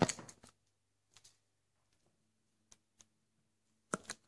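Red plastic cap of a dichlorvos aerosol can knocking against a painted wall to squash cockroaches. There is a sharp knock with a short clatter at the start, a few light ticks, then a second knock near the end.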